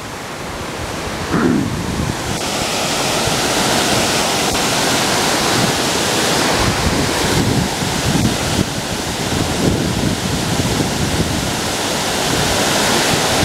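Water pouring over a low dam spillway: a steady rushing, swelling over the first couple of seconds and then holding, with wind buffeting the microphone.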